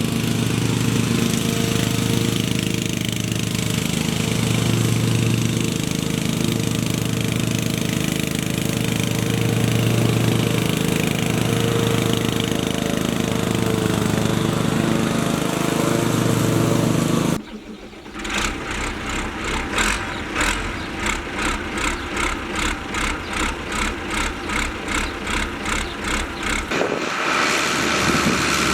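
An engine runs steadily. About two-thirds of the way in it cuts off sharply and is replaced by a rhythmic pulsing engine sound at about two beats a second.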